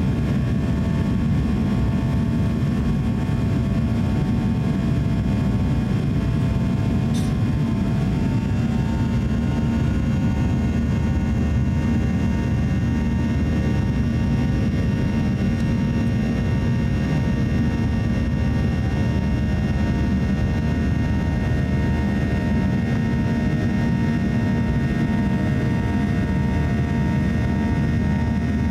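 Cabin noise of a Boeing 737-800 climbing out after takeoff: a steady low roar of rushing air and its two CFM56-7B turbofans, with several steady engine tones humming above it.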